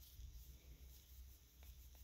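Near silence: room tone with a low hum, and a couple of faint small clicks near the end from a steel rod being fitted into a small brass keeper.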